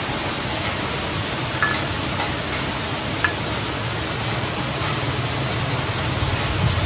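Heavy rain falling, a steady even hiss, with a few light clicks in the first half.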